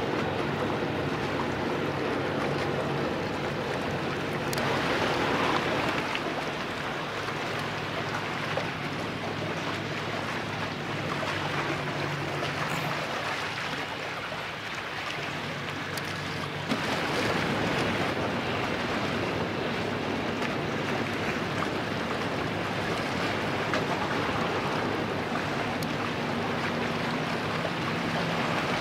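A boat engine running steadily at low revs, under a constant hiss of wind and water. The hiss grows louder about four seconds in, eases off, then rises again past the middle.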